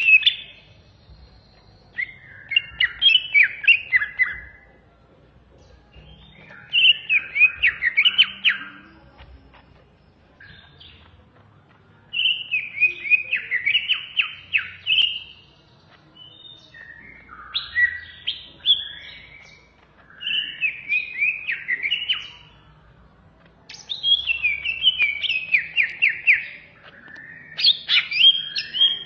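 Greater green leafbird (cucak ijo) singing: about seven phrases of rapid, chattering notes, each lasting two to three seconds, with short pauses between them.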